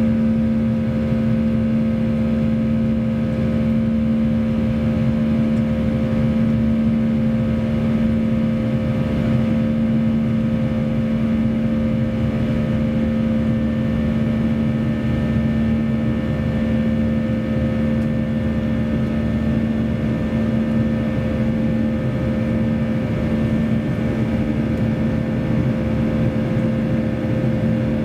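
Steady cabin noise of a Boeing 737-800 climbing after takeoff: the drone of its CFM56-7B turbofan engines and the rush of airflow. Two steady hum tones sit over the rush.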